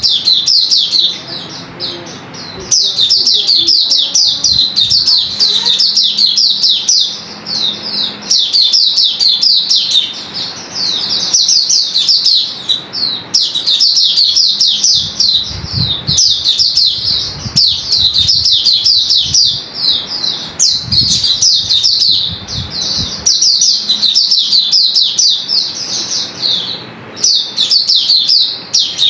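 Hume's white-eye (Zosterops auriventer) singing: rapid, high twittering phrases of quick notes, repeated one after another with short pauses.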